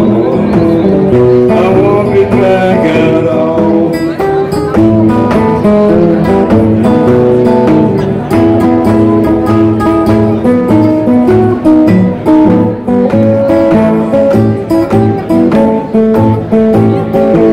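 Metal-bodied resonator guitar played solo in Delta blues style: an instrumental break of picked bass notes under short treble runs, in a steady rhythm.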